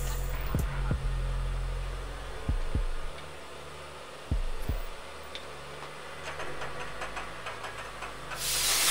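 Bridgeport vertical mill running with a drill fed down into the workpiece, with a low hum and scattered knocks. A short, loud burst of hiss comes near the end.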